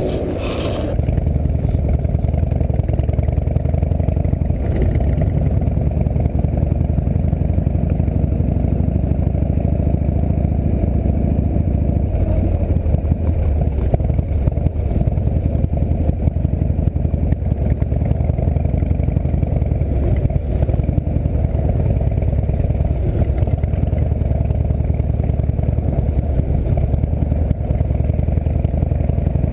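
Harley-Davidson V-twin engine of a chopper trike running steadily under way, heard close from a camera on the handlebars.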